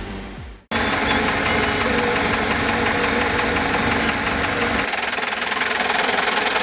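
Background music fades out, then an industrial wood chipper runs loud and steady, its engine and cutters making a dense rapid knocking. The deep part of the sound drops away a little before five seconds in.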